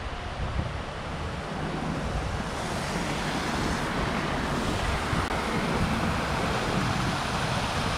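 City street ambience: a steady hiss of passing traffic that grows a little louder a few seconds in.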